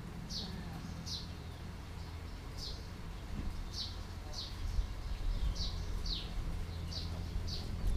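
A small bird calling over and over: short, high chirps that each fall in pitch, roughly one or two a second, over a steady low hum.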